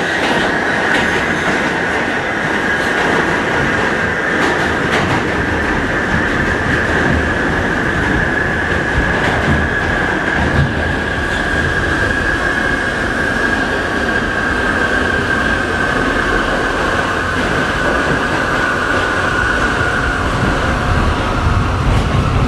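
Traction motors of an R68 subway car give a severe, high whine that sinks slowly in pitch and drops lower near the end. Under it is the rumble and clatter of the car riding on the track, heard from inside the car.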